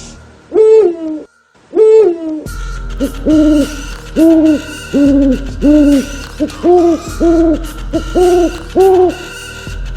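Owl hooting: two longer hoots in the first couple of seconds, then a run of short, evenly pitched hoots at roughly two a second.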